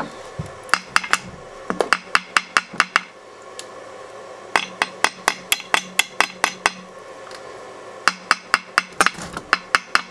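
A small metal tool tapping the anodized aluminium rims of two Inmotion V12 electric unicycle wheels in turn, in four quick runs of light taps, each with a short metallic ring. The taps compare the ring of the upgraded, substantially thicker rim on the High Torque model with the older, thinner rim.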